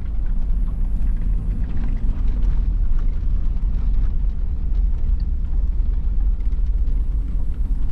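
Vehicle driving across farmland: a steady low rumble of engine and ride noise with no break.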